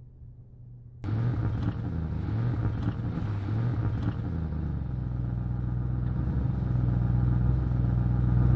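Audi RS 7 Sportback's 4.0-litre twin-turbocharged V8 starting up: it catches suddenly about a second in, runs unevenly for a few seconds, then settles into a steady idle.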